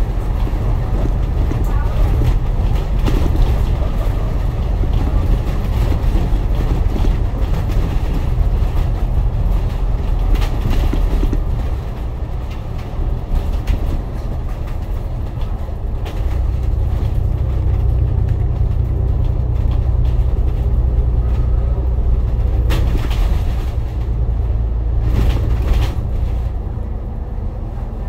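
A bus's engine and road noise heard from inside the cabin: a steady low drone that eases off about twelve seconds in and builds again a few seconds later, with a couple of sharp knocks near the end.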